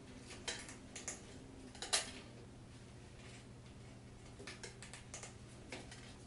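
A loose prefinished parquet floorboard being handled and shifted on a wooden floor: a few light, sharp knocks and clicks as it is set down and moved, the loudest about two seconds in, with small scrapes of a pencil marking cut lines.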